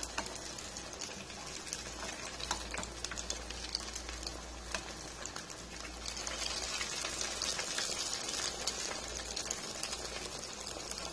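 Vermicelli-coated chicken cutlets frying in hot oil in a pan: a steady sizzle with scattered crackles.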